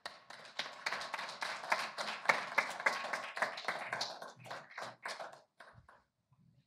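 Applause from a small audience, thinning to a few scattered claps and stopping about six seconds in.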